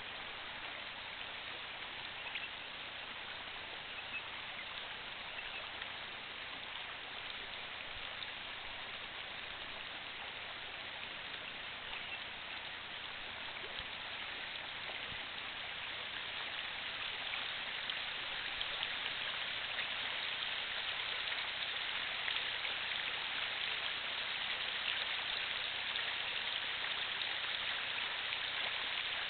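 Steady outdoor hiss with a few faint ticks, growing a little louder about halfway through.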